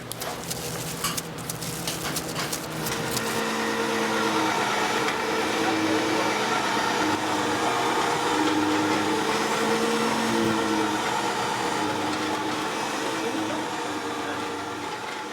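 A small motor running steadily, with a few clicks in the first second or two.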